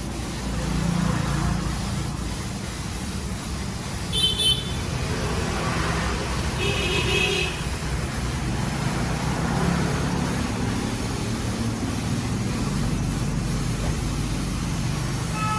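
Road traffic with engines running steadily, and two short horn toots, one about four seconds in and a longer one about seven seconds in.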